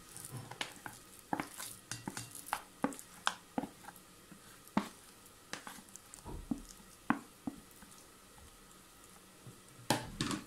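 Wooden spatula scraping and tapping a soft sweet-potato filling out of a plastic bowl into a glass bowl: a run of irregular soft knocks and scrapes for the first seven seconds or so, then one louder knock near the end.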